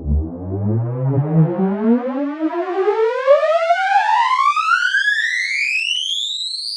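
Synthesized riser sound effect: one buzzy pitched tone with several overtones gliding steadily upward in pitch from a low rumble to a high whine, easing off slightly in loudness near the end.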